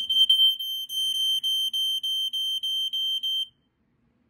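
Probe 601 smoke alarm sounding on test, now working: a shrill, high-pitched tone that pulses rapidly, then cuts off suddenly about three and a half seconds in.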